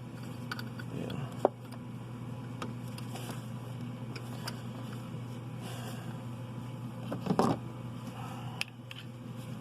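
Wrench working on the turbo oil-line fitting: scattered light metal clicks and taps over a steady low hum, with a louder knock about seven seconds in.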